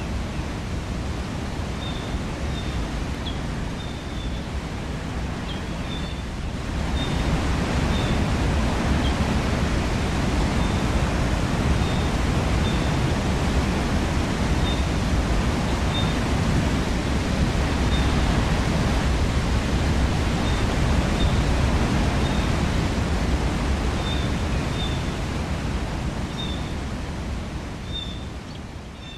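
Waterfall rushing, a steady wash of water noise that grows louder about seven seconds in and fades near the end. Short high chirps repeat throughout.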